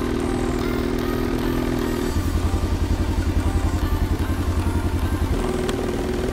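Snowmobile engine idling: a steady hum, changing about two seconds in to a lower, pulsing exhaust note for about three seconds, then back to the steady hum.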